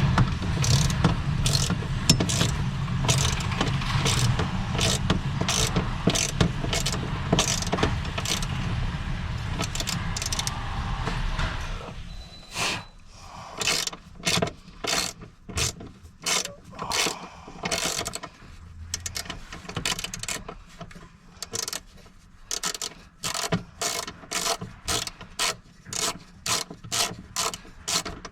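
Ratchet wrench with a T30 Torx socket clicking as the seat bolts are backed out. For about the first twelve seconds the clicking is dense over a louder low rumble, then it continues as separate quick strokes, roughly two a second.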